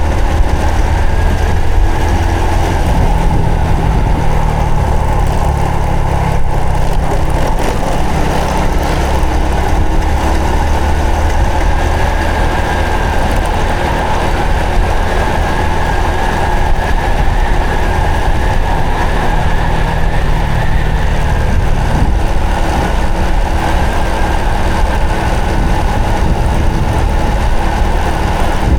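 Honda Supra X 125 FI's single-cylinder four-stroke engine running while the bike is ridden, at a steady pace with no sharp revving, over a heavy low rumble of riding noise.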